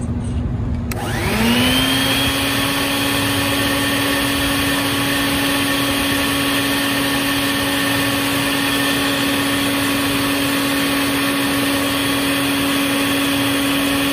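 Bucket-top shop vacuum motor switched on with a click about a second in, spinning up quickly and then running at a steady pitch. It is blowing smoke down a plumbing vent stack for a smoke test.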